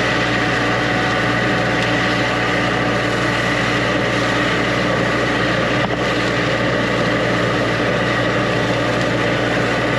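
High-pressure drain jetter running steadily at about 2000 psi: a constant engine-and-pump hum with several held tones over a noise wash.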